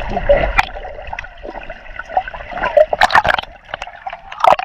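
Water gurgling and sloshing around a submerged action camera, with sharp splashes about three seconds in and again near the end as the camera reaches the surface.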